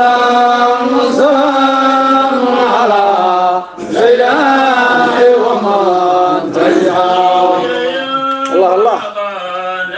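Devotional chanting of a Sufi qasiid: long, drawn-out melismatic notes with a brief pause about three and a half seconds in.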